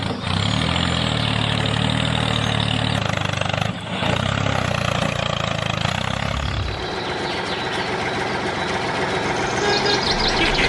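Tractor engine running at idle with a steady low beat. The low part of the sound drops away about two-thirds of the way through.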